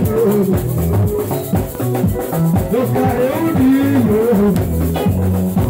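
Live ohangla band music: a fast, steady shaker rhythm over bass notes and a sliding melody line from keyboard or voice.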